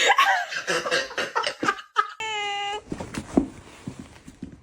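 A person laughing in quick bursts, followed about two seconds in by a short, steady tone lasting about half a second.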